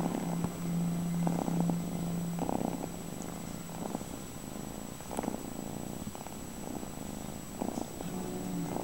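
Orange-and-white kitten purring while being stroked, the purr swelling and easing with each breath, roughly once a second.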